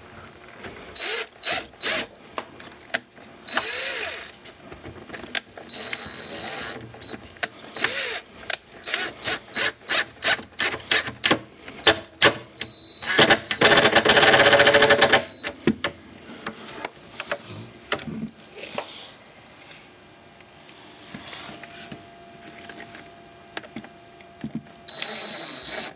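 Cordless DeWalt impact driver driving a pocket screw into the wooden panel frame, a fast hammering rattle lasting about two seconds in the middle. Scattered clicks and knocks of screws and the tool being handled come before and after it.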